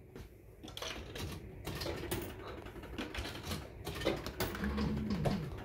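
Maygay 'Great Escape' fruit machine clicking and clattering in rapid, irregular strokes, with a short rising-and-falling tone about five seconds in.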